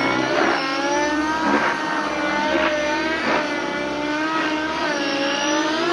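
O.S. MAX-55HZ two-stroke glow engine of a JR Vibe 50 NEX RC helicopter running at high revs in 3D flight, its pitch rising and dipping repeatedly as the load changes. A few times the rotor noise surges in short whooshes.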